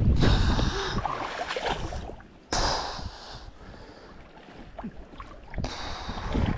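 Wind buffeting the microphone beside a stream, with three bursts of hiss that start and stop abruptly.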